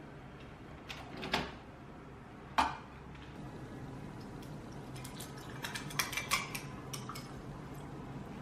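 Dishes and cutlery clinking in a kitchen: two clear clinks, the second with a short ring, then a run of lighter clicks and taps.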